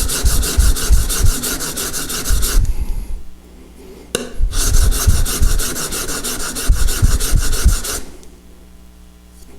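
Hand plane blade's bevel being rubbed back and forth on a fluid-lubricated 1,000-grit sharpening medium in quick, even scraping strokes, in two runs with a short pause about three seconds in, stopping about eight seconds in. This is the honing stage that raises a burr on the back of the blade.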